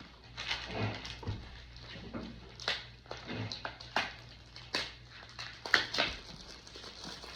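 Cellophane shrink-wrap and cardboard packaging being torn and handled: a string of short, irregular crinkles and clicks.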